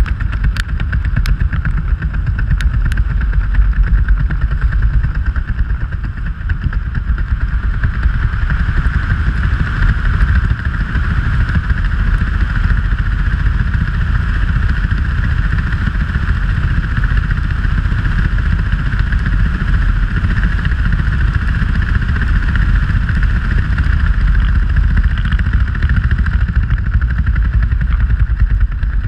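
Wind rushing over the camera's microphone during a skydive: a loud, steady rumble of air, with a few sharp ticks in the first three seconds.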